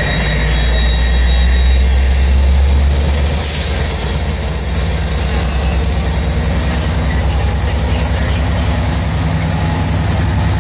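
F59PHI diesel locomotive running under power as its passenger train leaves the station, a steady low engine drone that is loudest in the first few seconds and then eases off as the locomotive draws away.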